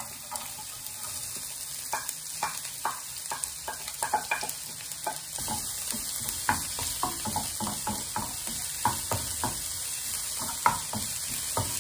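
Chopped onion and garlic frying in olive oil in a non-stick frying pan: a steady sizzle that grows stronger about five seconds in. A wooden spatula stirring and pushing the onion makes repeated short taps and scrapes against the pan.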